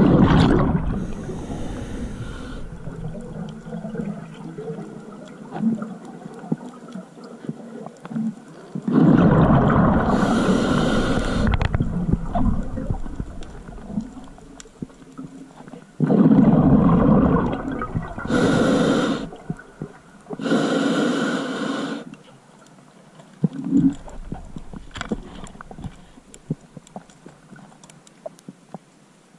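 Underwater: a diver's exhaled breath bubbling out in several rushing bursts of one to three seconds, with a quieter water hiss between them.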